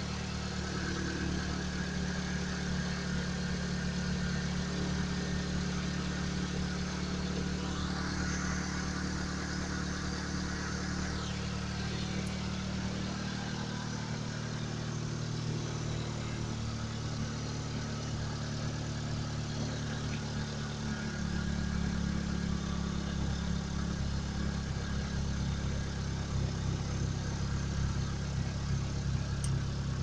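Car engine idling steadily, heard from the open engine bay, with a brief hiss from about eight to eleven seconds in. About twenty-one seconds in, the low hum grows a little fuller and louder.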